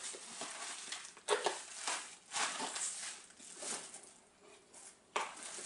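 Bubble wrap and plastic packaging crinkling and rustling as it is handled, in irregular bursts with short pauses.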